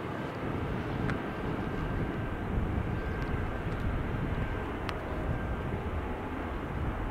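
Jet noise of an Airbus A350-1000 airliner on its landing, its Rolls-Royce Trent XWB engines making a steady rumble with a faint thin whine above it.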